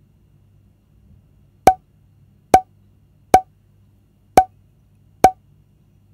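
Five short, pitched wood-block-like click sound effects, about a second apart, each marking one star of an on-screen difficulty rating popping into view.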